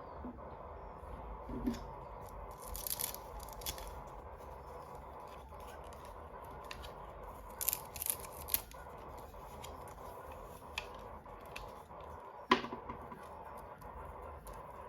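Toy packaging being opened by hand: scattered small clicks, scrapes and short tearing or cutting sounds over a faint steady hum, with one sharper click near the end.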